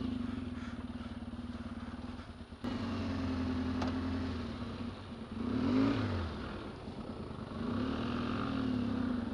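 A big trail motorcycle's engine runs steadily at low revs. Its revs rise briefly a little past halfway and again near the end, and there is a sharp click about two and a half seconds in.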